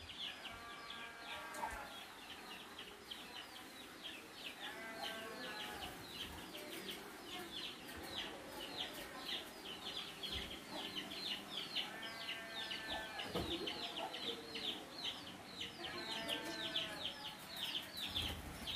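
Chickens clucking, with four drawn-out calls spaced through the stretch, over a constant rapid high chirping of several chirps a second.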